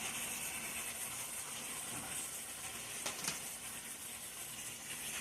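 Garlic sizzling steadily as it sautés, with a brief knock about three seconds in.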